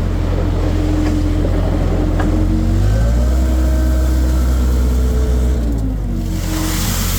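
Skid steer engine running steadily, revving up about three seconds in and holding higher for a few seconds before dropping back, with a hiss coming up near the end.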